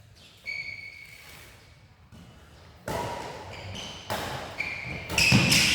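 Badminton rally: racket strikes on the shuttlecock about a second apart, from about three seconds in, with short high squeaks of shoes on the court floor.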